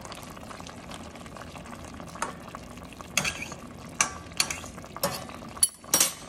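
A metal fork stirring cabbage in a stainless steel pot of simmering cooking liquid: a steady hiss from the pot, with a handful of clinks and scrapes of the fork against the pot, mostly in the second half.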